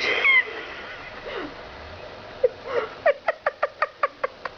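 A voice making short pitched sounds: a brief sliding note at the start, then, about three seconds in, a quick run of about ten short pitched notes, roughly seven a second.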